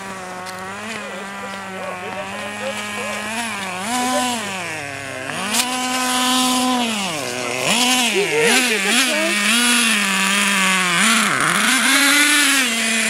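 Gas-powered RC car's small two-stroke engine running as the throttle is worked, its pitch rising and falling again and again. It gets louder about halfway through.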